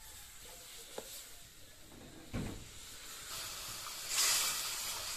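Water poured from a steel jug into a hot wok of fried curry masala, hissing and sizzling as it hits the hot metal and turns to steam. The hiss swells to its loudest a little past the middle, after a dull knock about two and a half seconds in.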